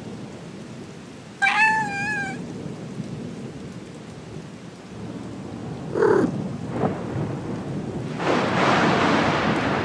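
Steady rain with a low rumble of thunder. A cat meows once, about a second and a half in, with a wavering cry that lasts about a second; a shorter sound follows about six seconds in, and the storm noise swells into a louder rush near the end.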